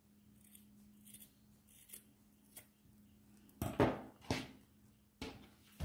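Small scissors snipping through the strands of a yarn tassel to trim it: several faint snips, then a few louder short sharp sounds about four seconds in and one more near the end.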